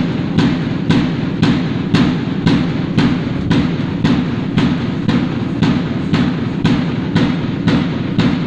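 A drum beating a steady marching cadence, about two strokes a second, keeping time for a file of marchers.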